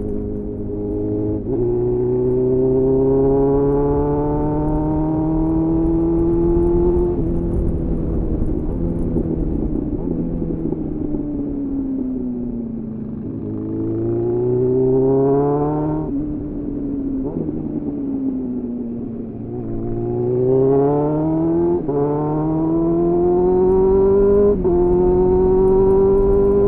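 2001 Suzuki GSF 600 Bandit's inline-four engine through an aftermarket SC-Project CR-T-style slip-on exhaust with a dB-killer, heard from onboard as the rider works it through tight bends: revs climb under throttle with sudden drops at gear changes, then fall away twice as he rolls off before pulling hard again.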